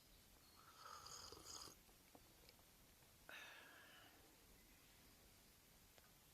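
Near silence: quiet outdoor ambience, broken by two faint, brief hissing or rustling sounds, one about a second in and another about three seconds in.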